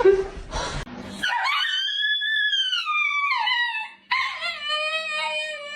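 A dog howling in two long, drawn-out calls: the first rises and then falls away, and the second comes in lower and is held nearly steady.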